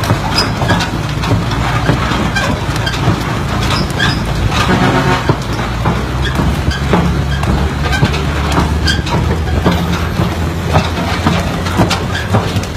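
Heavy truck hauling a flatbed container trailer at close range: a steady low engine hum under road noise, with frequent short knocks and rattles. A brief pitched tone sounds about five seconds in.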